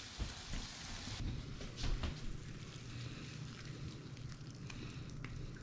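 Faint sizzling of quail breasts in a brandy glaze in a frying pan, which stops abruptly about a second in. Then a faint low hum with a few light clicks and knocks.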